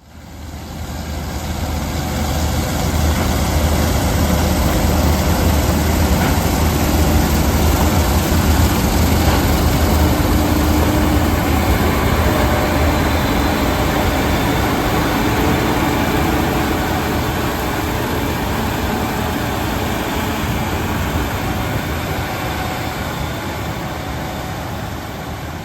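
Gleaner class 7 combine harvester working in wheat: a loud, steady diesel engine and machinery rumble. It swells up over the first few seconds, then slowly fades through the second half.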